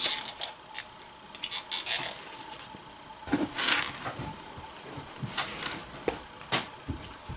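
Handling noises: earmuffs being pulled on over the ears, then scattered light clicks and short rustles as the shooter settles in behind a bench-rested rifle. No shot is fired.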